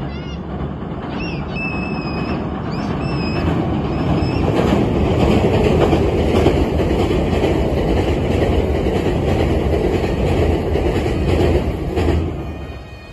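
Meitetsu 2200-series electric train crossing a steel truss bridge: a rumble and clatter of wheels that builds up over the first few seconds, holds, then falls away sharply near the end. A thin high tone runs above it while the train passes.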